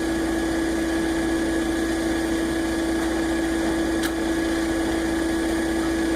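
Concrete mixer truck's diesel engine running steadily with a constant hum while the drum turns during the pour.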